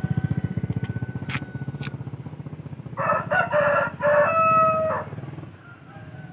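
A rooster crowing once, a full cock-a-doodle-doo about three seconds in that lasts some two seconds. Under it a small engine putters steadily and fades away.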